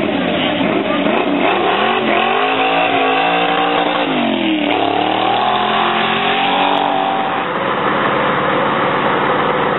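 A first-generation Chevrolet Camaro's engine revving as the car accelerates past. The pitch climbs, drops sharply for a moment about halfway through, then climbs again. In the last couple of seconds it blends into a steadier, rougher engine roar.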